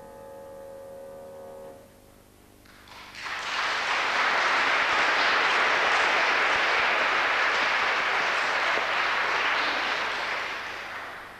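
The last chord of a grand piano dies away, then an audience breaks into applause about three seconds in. The clapping holds steady and fades out near the end.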